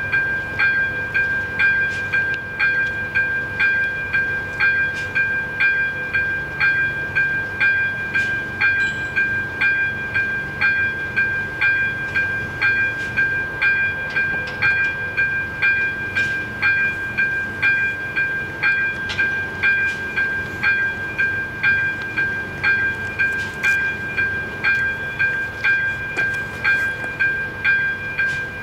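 Electronic level-crossing bell (AŽD ZV-02) ringing in a steady, even rhythm of about three strikes every two seconds, each strike ringing on into the next. The crossing warning is active for an approaching train.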